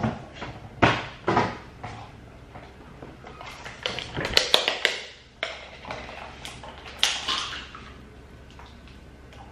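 Kitchen handling noises: a few knocks and thuds, then a run of clicks and crackles about four to five seconds in as a cream carton is handled and opened, and one more knock about seven seconds in.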